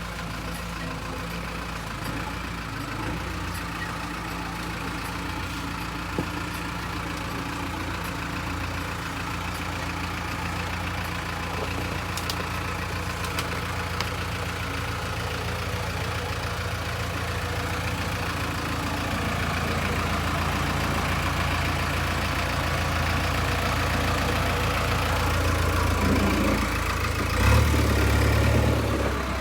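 Diesel engine of a heavy construction machine running steadily. It grows gradually louder, and near the end its note drops and swells as it takes more throttle.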